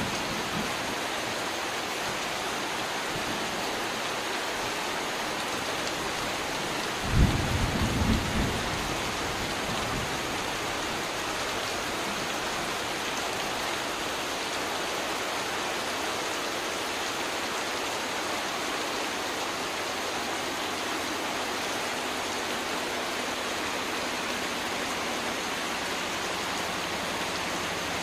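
Heavy rain pouring steadily onto river water and plastic tarpaulin-covered boats. A brief low rumble comes about seven seconds in.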